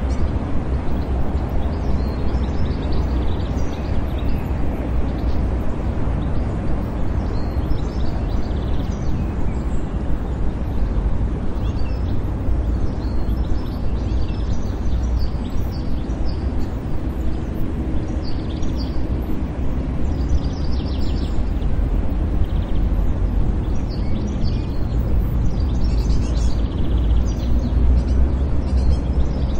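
City park ambience: a steady low rumble of distant traffic with small birds chirping now and then.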